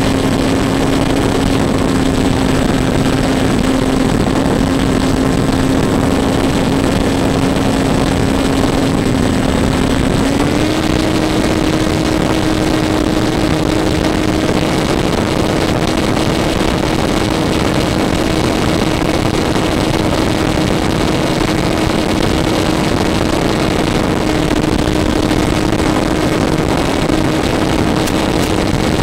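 RC model airplane's motor and propeller running in flight, a steady drone that steps up slightly in pitch about ten seconds in as the throttle is advanced, over a loud hiss of rushing air.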